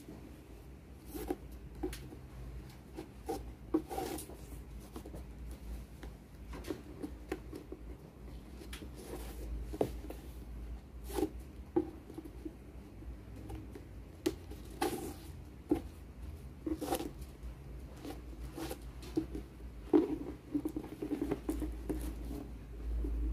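Handling noise from a cardboard gift box and its ribbon: irregular scratches, light knocks and rustles as the ribbon is pulled loose and the box is turned over in the hands.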